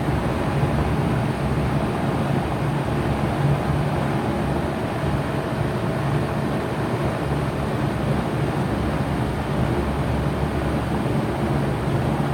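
2007 Bard 3.5-ton wall-hung heat pump running steadily in heat mode: an even rush of air from the fan over a low compressor hum.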